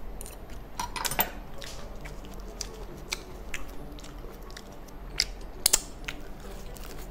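Close-miked eating sounds: chewing fried rice and roasted seaweed, with scattered sharp crackles and clicks, the loudest about a second in and a cluster shortly before six seconds, as a seaweed-wrapped bite is bitten.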